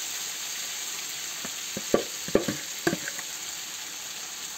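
Chicken and vegetables sizzling in hot oil in a cast-iron kazan, with a metal slotted skimmer knocking against the pot several times about two seconds in as the food is stirred.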